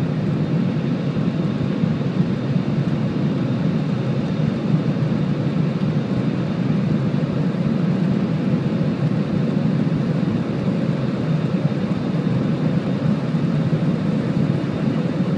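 Airbus A320 cabin noise in flight: the jet engines and rushing air make a steady, even low rumble with a faint constant hum above it.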